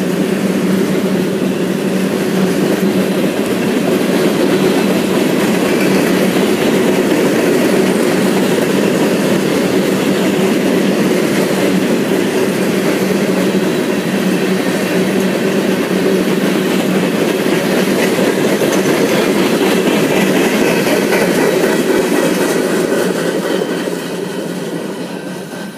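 Freight train cars (tank cars and covered hoppers) rolling past at close range: the steady rumble and clatter of steel wheels on the rails, fading as the last car goes by near the end.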